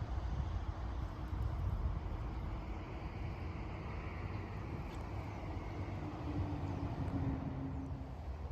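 Steady low rumble of road traffic, with a faint engine drone passing between about six and eight seconds in.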